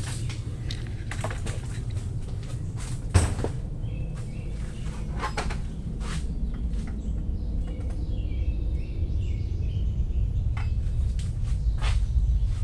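Workshop handling noises at a metal tool chest: scattered clicks and knocks from tools and parts being picked up and set down, the loudest a sharp knock about three seconds in, over a steady low hum.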